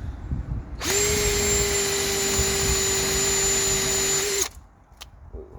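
Bauer cordless compact hammer drill running at one steady speed as it drills a hole with a bit: it starts about a second in, holds a steady whine for almost four seconds, then stops suddenly.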